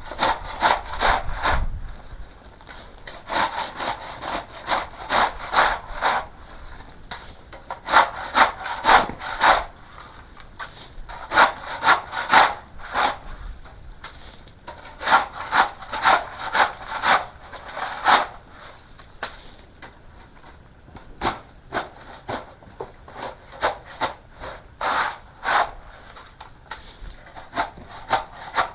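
Rhythmic scraping strokes on wood, about two a second, in runs of several strokes with short pauses between runs.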